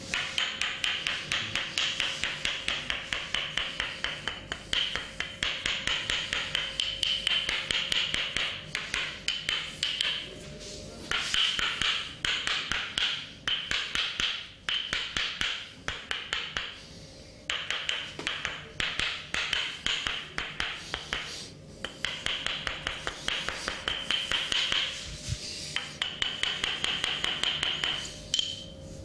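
Rapid percussive hand strikes of a barber's tapping-and-chopping massage on the client's body, several sharp slaps a second. They come in runs of a few seconds with brief pauses between.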